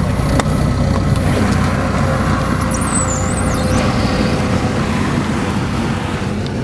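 Light aircraft's piston engine and propeller running steadily with wind rushing past, a loud, even, low drone.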